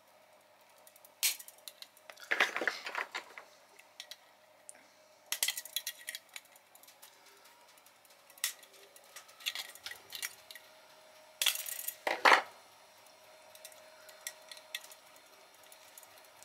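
Pliers clicking and scraping on the metal frame of a Ranco K59 fridge thermostat as it is pried apart: scattered sharp metallic clicks and clinks, the loudest about two and a half seconds in and again about twelve seconds in.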